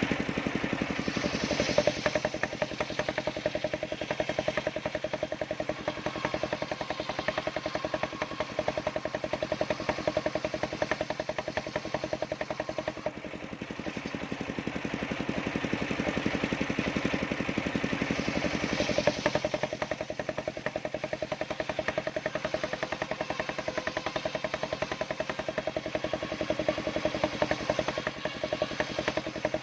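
Engine-driven large circular sawmill blade running steadily with a pulsing engine note. It turns harsher and louder about two seconds in and again past halfway, as the blade works through timber.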